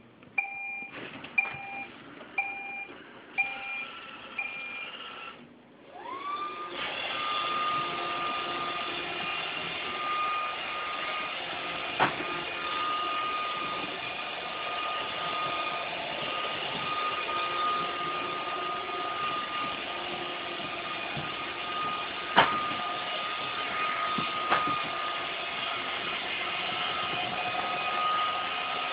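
iRobot Roomba 530 robot vacuum: a run of short, evenly spaced beeps for the first five seconds, then its motors spin up with a rising whine about six seconds in and run steadily with a high whine. A few sharp clicks stand out during the run, the loudest about 22 seconds in.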